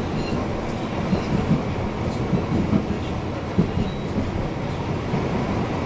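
Tram running along its track, heard from inside the car: a steady rolling rumble with a few light knocks from the wheels.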